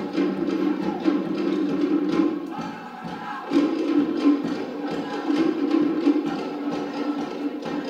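Cook Islands drumming: a fast, even beat on wooden slit drums with a group of voices singing along. The music dips briefly about a third of the way in, then comes back.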